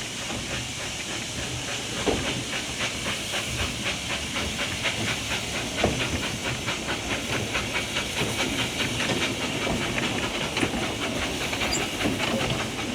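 Narrow-gauge steam locomotive chuffing steadily, about four exhaust beats a second, with a hiss of steam and a few knocks from the carriages on the track.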